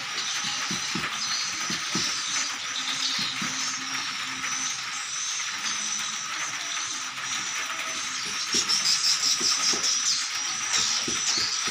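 Night chorus of insects and frogs: a steady high trilling with a thinner steady tone beneath it. About eight and a half seconds in, a rapid pulsing call grows louder for a second or two. Under it runs an uneven patter of soft low knocks from water lapping.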